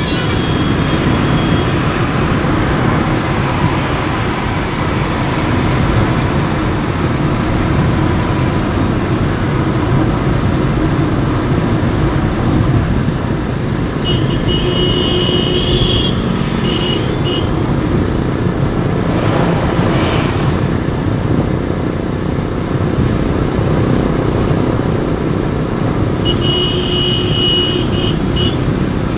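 Steady road and engine noise heard inside a car's cabin while it drives at highway speed. A high tone sounds briefly twice, about halfway through and again near the end.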